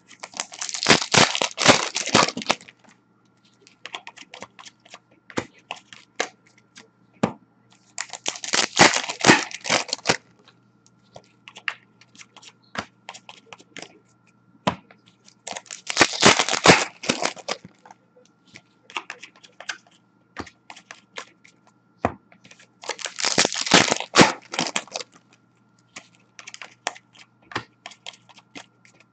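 Upper Deck hockey card packs being torn open one after another, a crinkly ripping of the wrapper about every seven seconds, four times with a fifth starting at the very end. Light ticks and flicks of the cards being handled and stacked come in between.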